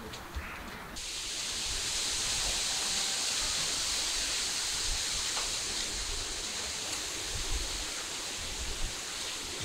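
Steady outdoor hiss, strongest high up, that sets in abruptly about a second in and holds evenly.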